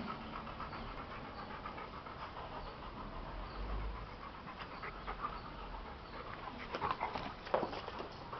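Rottweiler panting steadily, with a cluster of louder short, sharp sounds near the end.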